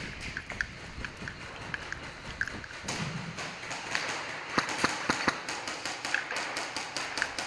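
A run of sharp taps and knocks, sparse at first and coming quickly from about four seconds in: airsoft guns firing and BBs striking hard surfaces.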